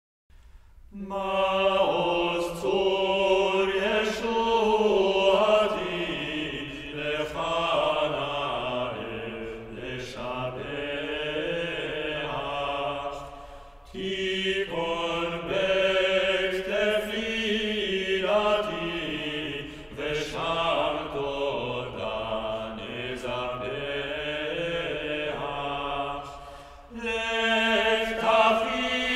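Male cantor singing a solo Jewish liturgical chant in long, ornamented phrases that slide up and down in pitch. It starts about a second in and pauses briefly three times.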